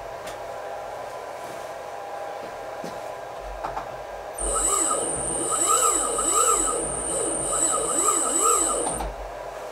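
Newly fitted water-cooled CNC milling spindle switched on for a brief dry test run, with no cooling water in it. A high-pitched whine with a warbling lower tone under it starts about four and a half seconds in and cuts off sharply about four and a half seconds later.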